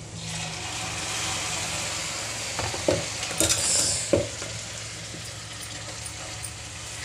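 Wet ginger-garlic-tomato paste hitting hot oil and fried onions in a pan: a sizzle that swells in the first second and then holds steady, fading a little. A few sharp utensil knocks sound about halfway through.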